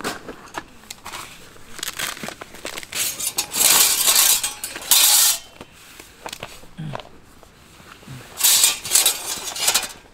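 Thin steel plates of a FIELDOOR folding fire pit being handled and laid out on a ground sheet: metal clinking and scraping, with two longer bursts of rustling and sliding, a few seconds in and near the end.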